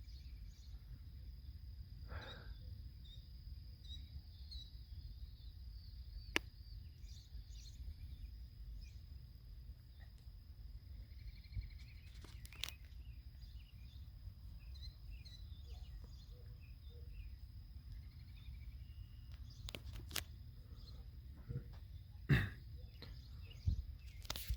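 Outdoor ambience before a storm: wind rumbling on the microphone, with scattered bird chirps and a steady high-pitched tone. A few sharp clicks or knocks come through, the loudest about 22 seconds in.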